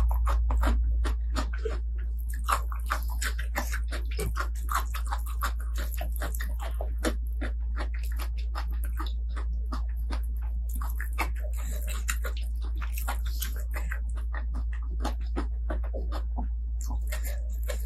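Close-miked eating sounds: chewing with a dense run of short wet mouth clicks and smacks, several a second, over a steady low hum.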